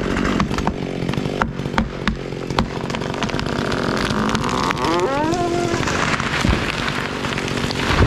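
Chainsaw idling while a felled tree cracks and snaps as it goes over, then lands with one heavy thud at the very end. A rising shout is heard about five seconds in.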